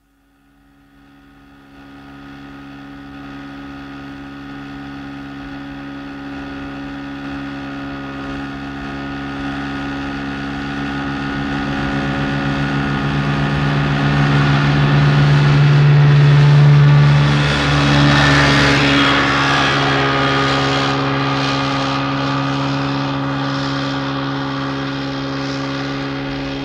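A 16-foot motorboat with a 40-horsepower engine passing by: the engine drone fades in, grows steadily louder to a peak about two-thirds of the way through, then slowly recedes.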